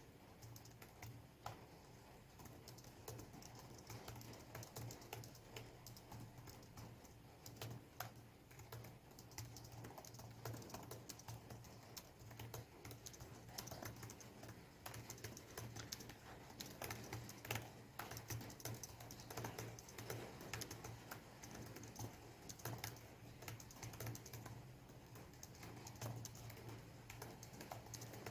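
Fast touch-typing on a Lenovo IdeaPad V330 laptop's chiclet keyboard: a dense, irregular run of light key clicks, with rain in the background.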